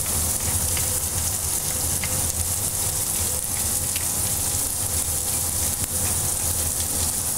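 Sliced carrots sizzling steadily in olive oil in a black steel frying pan over a gas flame, with a few faint ticks and a low steady hum underneath.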